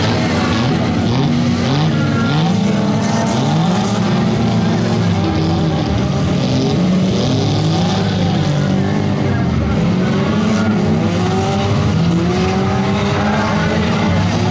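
Several race cars on a dirt track, their engines revving up and down as they go round, the rising and falling engine notes overlapping.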